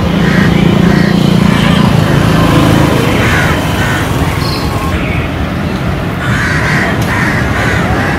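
Crows cawing repeatedly, short calls every second or so, clustered near the end, over a steady low rumble with a lower hum that is strongest in the first two seconds.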